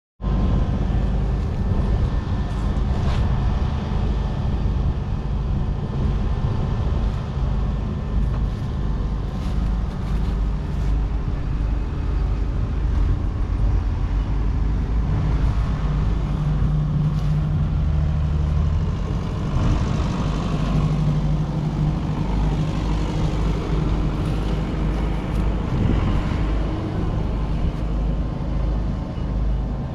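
Claas Arion 440 tractor's 4.5-litre four-cylinder diesel engine running steadily, its note shifting in pitch about halfway through.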